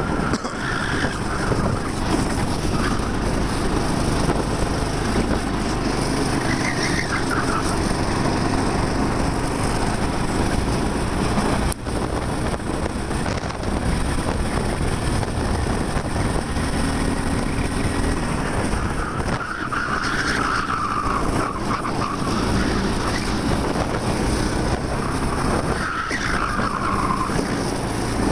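A 13 hp kart engine running hard at racing speed, heard from a microphone in the driver's helmet. A few short tyre squeals come through the corners: about a second in, near seven seconds, around twenty seconds and again near twenty-six seconds.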